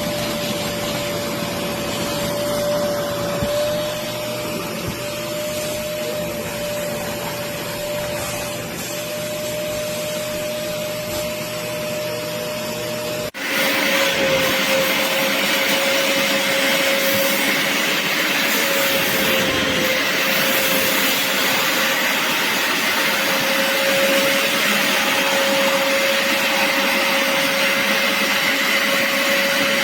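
BISSELL Little Green portable carpet and upholstery cleaner running steadily with a high motor whine over rushing suction noise. About 13 seconds in, the sound cuts off abruptly and comes back louder and hissier.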